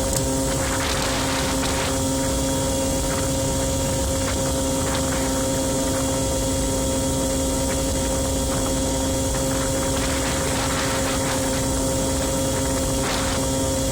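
Aprilia Ditech scooter's 50 cc two-stroke Morini engine running at a steady, unchanging pitch while riding, over a steady rushing noise.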